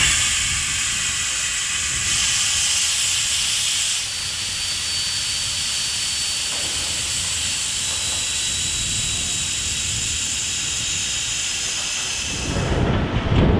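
Steady hiss of an electric welding arc, with a faint high whine running through it; it starts abruptly and dies away after about twelve seconds.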